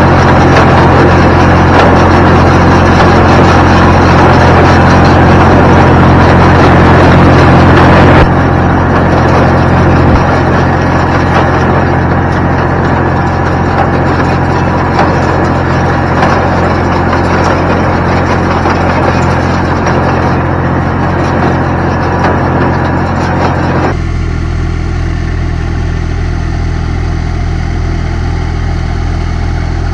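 Massey Ferguson 254s tractor engine running steadily under load while the Welger WSA 350 low-pressure baler clatters behind it, picking up and baling hay. Near the end the sound cuts abruptly to the tractor's engine running more quietly.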